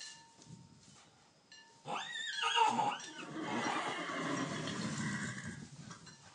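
Newborn foal squealing: a high-pitched whinny starts about two seconds in, rising and then wavering. It runs on into a rougher, noisier stretch that fades out just before the end.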